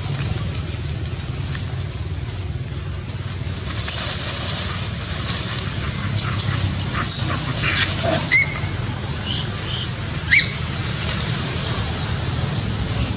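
A steady low rumble, with a run of short, high-pitched squeaks and chirps in the middle stretch, some sliding in pitch, the loudest coming about eight and ten seconds in.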